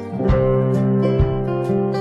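Background music with sustained notes and a steady beat of about two strokes a second.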